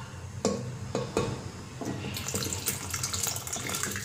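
A few knocks of a bowl or spoon against the cooker, then soaked split red lentils and taro pieces with their water being poured into an aluminium pressure cooker of simmering masala, splashing and sloshing from about halfway in.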